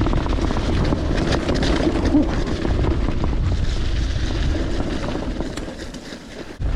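Mountain bike riding over rough trail: wind buffets the microphone with a low rumble, over a run of clicks and rattles from the bike on rocky ground. The noise eases off toward the end, dips out briefly, and comes back suddenly.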